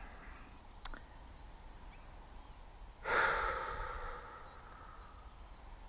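A person sighing: one long breathy exhale about three seconds in that fades out, with a faint click just before a second in.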